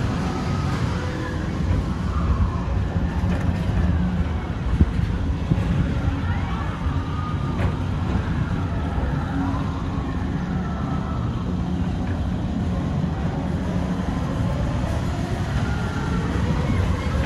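Tomorrowland Transit Authority PeopleMover car rolling along its elevated track, a steady low rumble, with faint wavering tones over it.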